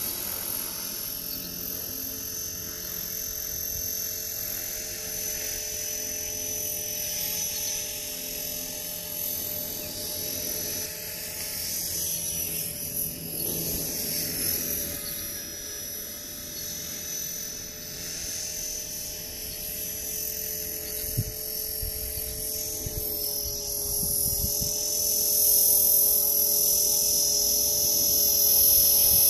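Electric RC helicopter (E-flite Blade 450 3D) in flight: a steady high-pitched whine from the brushless motor and drive gears, with the rotor buzz, wavering in pitch as the throttle and pitch change. It grows louder near the end.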